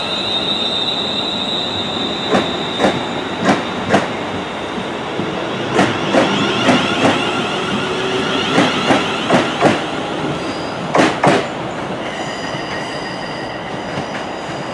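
London Northwestern Railway Class 350 Desiro electric multiple unit pulling away from the platform. Its traction motors give a high steady whine that fades over the first few seconds, and its wheels click over the rail joints in quick pairs, one pair to each bogie, several times.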